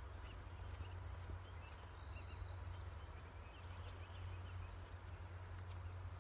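Faint outdoor ambience: a steady low wind rumble on the microphone with a few small, distant bird chirps.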